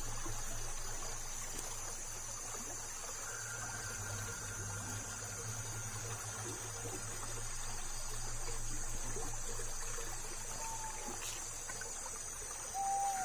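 Night-time outdoor ambience of steady, high insect chirring with a low steady hum underneath. Near the end come two short, falling, whistle-like calls.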